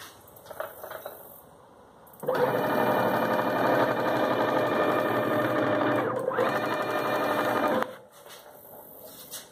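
Stepper motors of a homemade CNC machine driving its axes: a loud steady whirring that starts about two seconds in, breaks off briefly near six seconds, and stops just before eight seconds.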